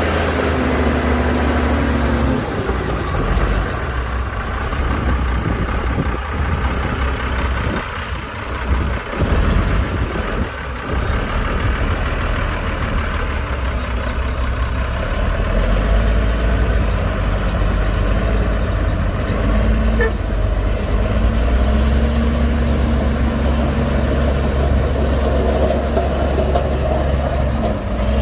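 Heavy diesel engine of earthmoving machinery working under load, its note rising and falling, with a stretch of uneven clatter about a third of the way in.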